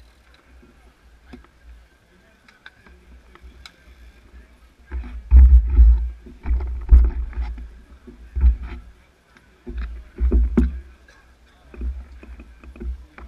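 Gusty low rumble buffeting a bike-mounted camera's microphone in irregular bursts, starting about five seconds in, with scattered small clicks and knocks of bicycles being shuffled about.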